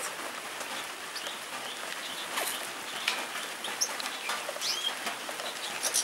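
Small aviary songbirds giving a few scattered short chirps and whistles over the steady hiss of falling rain.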